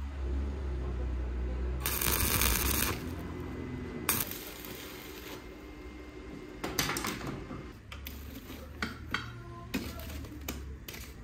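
Stick (arc) welder running for about a second, a crackling hiss over a low transformer hum, as a steel billet is tack-welded to a handling rod. Then scattered metal clinks and knocks of tools and steel being handled.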